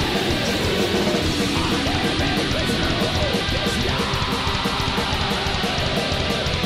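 Rock music with electric guitar and drums, playing steadily.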